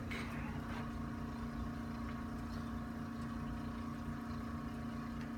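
A steady machine hum: one unchanging low tone over a faint rumble, with a couple of faint clicks in the first second.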